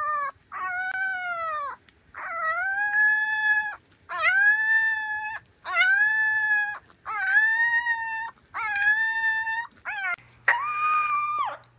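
Beagle puppy howling: a series of about eight high-pitched, drawn-out howls, each about a second long, with short pauses between them.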